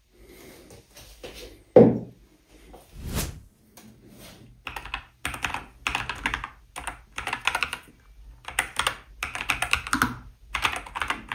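Fingers typing on a low-profile keyboard: scattered keystrokes at first, then dense bursts of rapid key clicks from about four seconds in. About two seconds in there is a single dull thump, the loudest sound.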